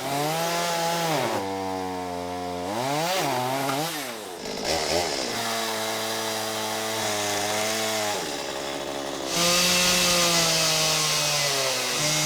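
Two-stroke chainsaw engine dropping back to idle, revving briefly, then idling. About nine seconds in it revs up to full throttle, cutting into wood.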